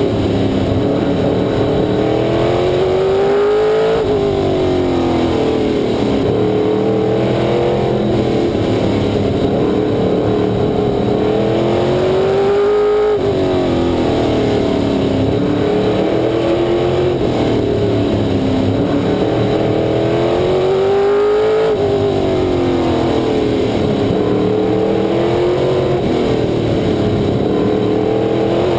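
Figure 8 race car's engine heard from the cockpit, loud and continuous, its pitch climbing on each straight and dropping off sharply as it lifts for the turns, again and again.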